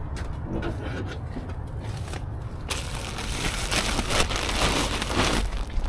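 Plastic bags of mulch crinkling and scraping as they are handled off a plastic-wrapped pallet; a dense rustle starts about two and a half seconds in and runs for about three seconds.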